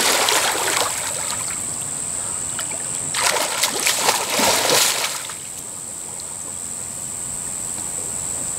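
Pool water splashing as a swimmer beats the surface with his arms, then a second burst of splashing from swimming strokes about three seconds in that lasts nearly two seconds, settling to quieter lapping water. A steady high-pitched whine sounds behind the splashing.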